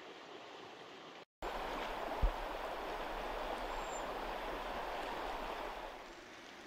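Flowing river water, a steady rushing. It cuts out briefly about a second in and comes back louder, with one short low thump soon after.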